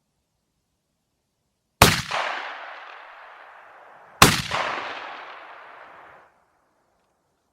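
Two shotgun shots from a Beydora BDR-90, about two and a half seconds apart, each followed by an echo that dies away over about two seconds.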